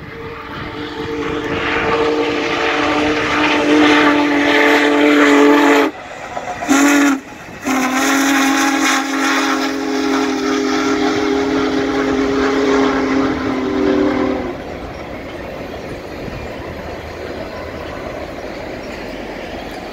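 Union Pacific Big Boy No. 4014 steam locomotive blowing its chime whistle as it passes: a long blast, a short one, then another long blast. After the whistle stops, the steady noise of the passenger cars rolling by.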